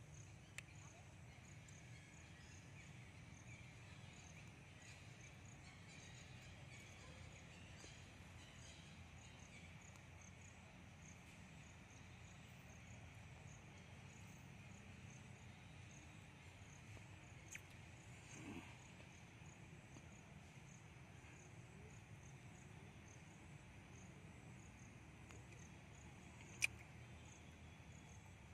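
Faint outdoor insect ambience: a high, evenly pulsing insect call over steady chirring and a low hum. A single sharp click sounds near the end.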